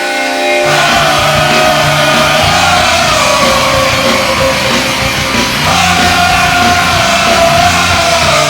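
Hard rock hockey goal song. A full band with a heavy bass line and shouted vocals comes crashing in about a second in, after a held chord.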